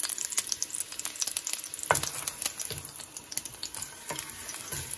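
An onion slice and a dried chile de árbol frying in hot oil in a stainless steel pot: a steady sizzle full of sharp crackling pops, with a wooden spoon stirring them.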